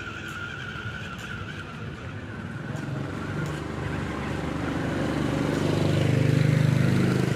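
Small electric motor and gearbox of a WPL D12 mini RC truck whining steadily. From about three seconds in, a low engine sound grows steadily louder and is loudest near the end.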